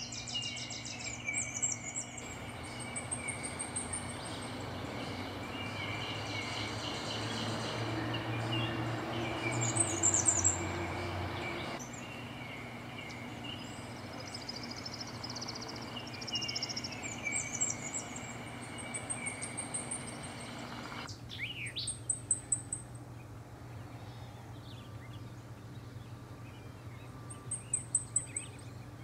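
Wood warblers singing in a run of short clips, including Wilson's and blackpoll warblers: series of very high, thin, quick notes, repeated every few seconds, over a steady low background rumble.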